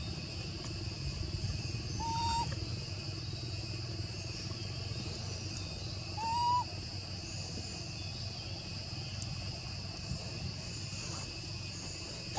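Forest ambience: a steady high insect drone, with two short, clear, pitched calls about four seconds apart, the second a little louder.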